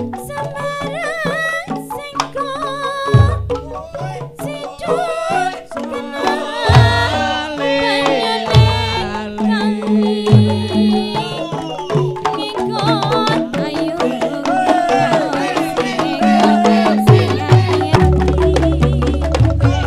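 Traditional dance music: deep drum strokes every few seconds under a wavering, gliding melody line.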